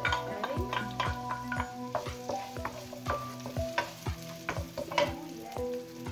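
Diced onion sizzling in hot olive oil in a non-stick wok, with a wooden spatula stirring, scraping and tapping against the pan. Background music with a steady beat plays over it.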